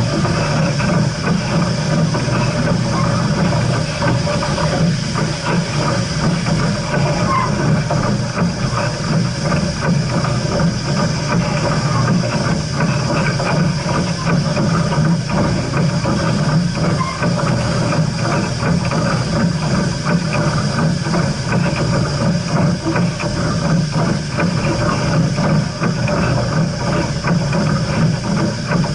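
Steam locomotive hissing steadily over a continuous low rumble, with no whistle or sudden events.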